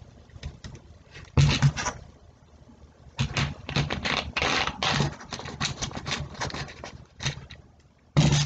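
Plastic Diet Mountain Dew bottle handled on a wooden table. It knocks down on the table about a second and a half in, then comes a run of rapid clicks and scraping as its screw cap is twisted on, and a loud thump near the end.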